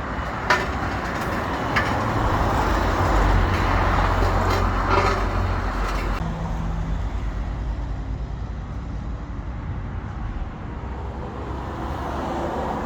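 Road traffic passing on a busy city street. A loud vehicle with a deep rumble passes close during the first six seconds, with a few sharp clicks, then the traffic settles to a quieter, steady hum.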